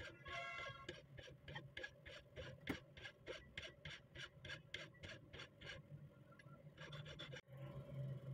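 Hand file rasping back and forth on a small metal rifle ejector clamped in a bench vise, about three strokes a second, shaping the part; the filing stops near the end.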